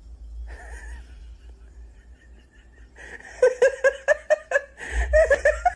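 Domestic cat giving a rapid, stuttering call that sounds like laughter. There is a short call about half a second in, then a run of quick pulses, five or six a second, from about three seconds in.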